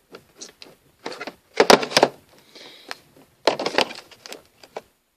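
Cardboard-and-plastic blister packs of toy figures being handled and set down: rustling with sharp clicks and knocks, loudest about two seconds in and again about three and a half seconds in.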